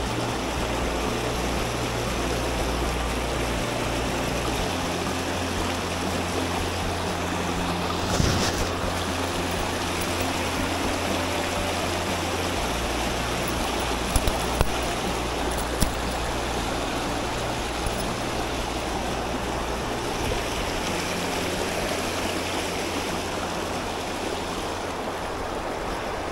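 Steady rushing of river rapids tumbling over rocks, with a few short knocks at about 8, 14 and 16 seconds in.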